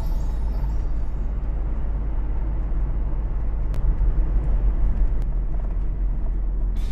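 Camping car driving on the road: a steady low rumble of engine and tyre noise.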